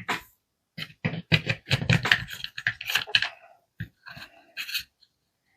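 Scraping, rattling and clicking as a Parkside cordless mini chainsaw is handled and its chain is worked by hand, in a run of short sounds close together, then a few separate clicks and scrapes near the end.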